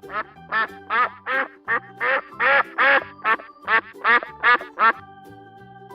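A duck quacking in a quick series of about a dozen quacks, two or three a second, stopping about five seconds in, over soft background music.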